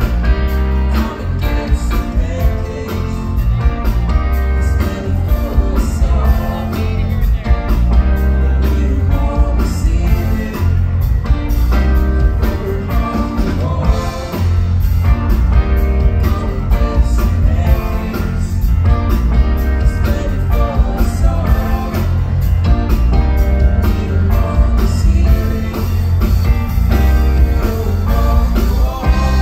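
Live rock band playing a song: guitar over a heavy bass line and a steady drum beat.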